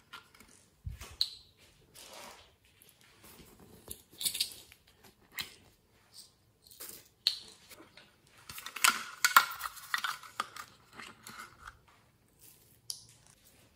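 Hands handling small plastic toy containers: a run of sharp plastic clicks, taps and brief rattles as they are opened and shaken, with glitter and sequins tipped out into a glass dish. The busiest rattling comes in the second half.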